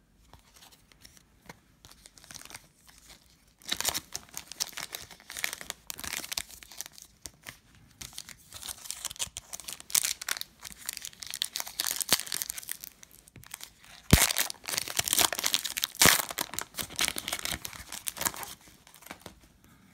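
Foil wrapper of a Donruss Optic trading-card pack being crinkled and torn open. It crackles in spells from about four seconds in, with two sharp snaps in the last third.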